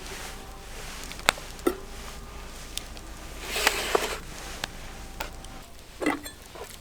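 A few scattered sharp knocks and taps, with a short rustling clatter about three and a half seconds in.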